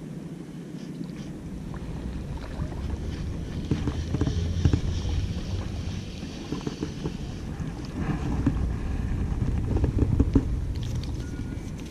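Wind rumbling on the camera microphone, with rustling and small clicks from handling the rod and a Daiwa Legalis spinning reel as a small fish is reeled in and lifted out of the water.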